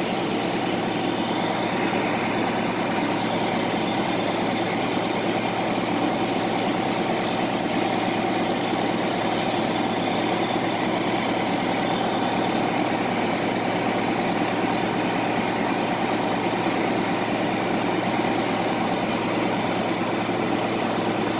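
Fire truck's diesel engine running steadily, an even drone.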